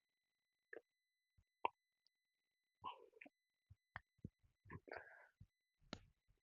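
Faint, scattered clicks, taps and light scrapes of 3D-printed plastic model-aeroplane parts being handled and pressed into place, with the sharpest click a little under two seconds in.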